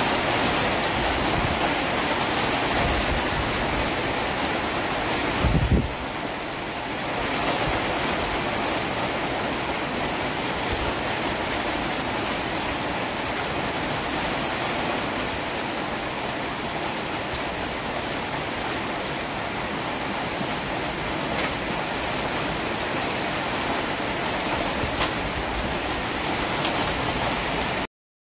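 Strong wind rushing through banana and palm leaves, a steady hiss of thrashing foliage, with a gust buffeting the microphone about six seconds in. The sound stops abruptly near the end.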